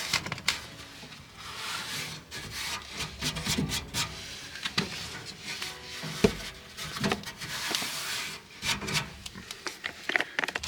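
Irregular rubbing and scraping with scattered sharp knocks, from handling the dryer's vent duct and clearing lint out of its mouth.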